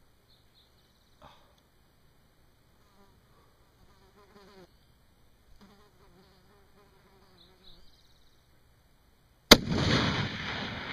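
A single shot from a .243 Winchester Ruger M77 VT rifle about nine and a half seconds in: a sharp crack followed by a long rolling echo. Before it there is only faint buzzing and a few small clicks.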